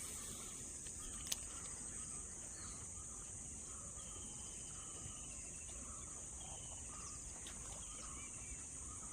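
Steady high-pitched chirring of insects such as crickets, with a few faint bird trills in the middle and a single sharp click about a second in.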